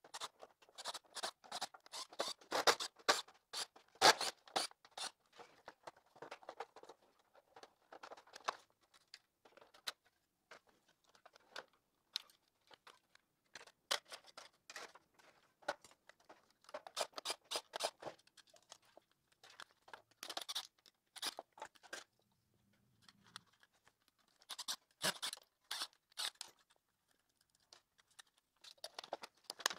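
Clicks, scrapes and rattles of a Roomba 670's hard plastic housing parts being unscrewed, pried and lifted apart by hand, coming in clusters with short pauses, busiest in the first few seconds.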